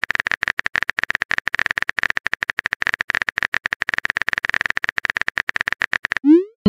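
Phone-keyboard typing sound effect: a fast run of short clicks, about ten a second, as a text message is typed out. Near the end the clicks stop and a short rising swoop follows, the message-send sound.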